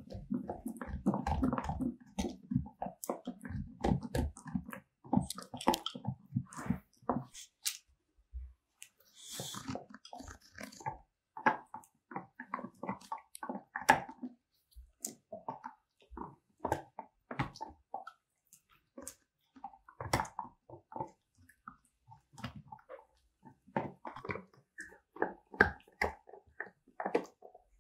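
Boxer dog gnawing on a deer antler: irregular clicking and scraping of teeth on the hard antler, with a short pause about eight seconds in.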